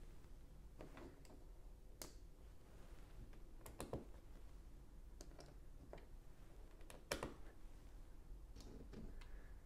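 Plastic LEGO pieces being handled and pressed onto each other: a quiet, irregular series of separate small clicks, the loudest about seven seconds in.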